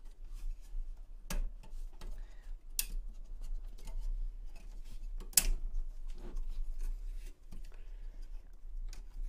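Hands working on a be quiet! CPU tower air cooler and its fan inside a PC case, making a string of small clicks and taps of plastic and metal. Three sharper clicks stand out, the loudest about five seconds in.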